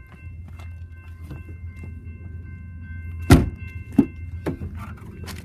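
A car door thunking twice, a loud knock a little past the middle and a second about a second later, over the car's steady low engine hum.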